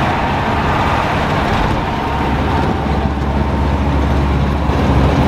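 Engine and road noise heard from inside a vehicle's cab while it drives on a dirt road: a steady low drone that grows a little heavier about two seconds in.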